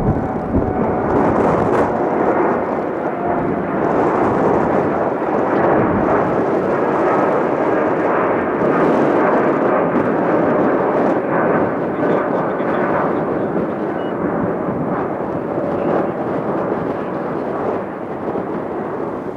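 Jet noise from a Boeing 787 Dreamliner's two General Electric GEnx turbofans at takeoff climb thrust: a loud, rough, crackling rush that holds steady and then starts to fade near the end as the airliner climbs away.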